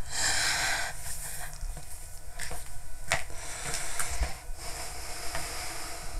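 A person sniffs in loudly, then a few light clicks follow.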